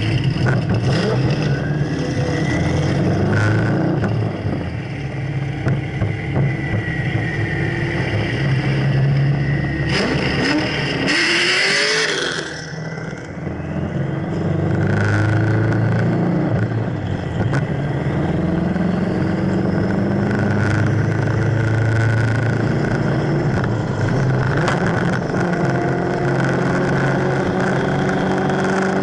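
Car engines running at highway speed under heavy wind and road noise. About ten seconds in, a loud rush of wind noise comes with an engine note rising in pitch, then the sound dips briefly.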